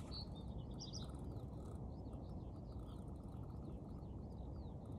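Small birds chirping in quick, repeated high notes over a steady low rumble.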